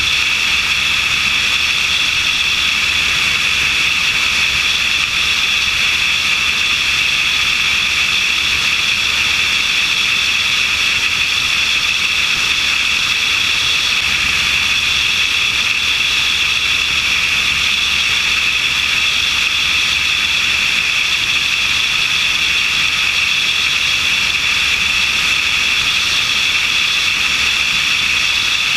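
Steady, unchanging rush of airflow and engine drone of a light aircraft in level flight, heard through a camera mounted on the wing.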